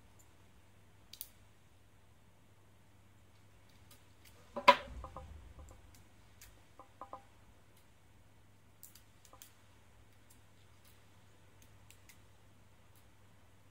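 Small plastic parts handled and clicked together as small black plastic pins are pressed into a servo motor's case: scattered light clicks, with one much louder knock about five seconds in. A faint steady hum sits underneath.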